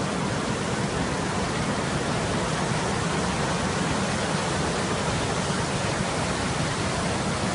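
Muddy floodwater of a rain-swollen river rushing in turbulent rapids: a steady, unbroken rushing noise.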